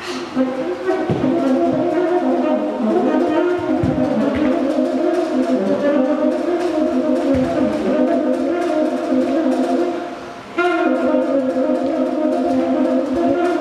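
Saxophone playing improvised, long, slightly wavering low notes. The sound breaks off briefly about ten seconds in, then comes back in abruptly. A few soft low thuds sound underneath.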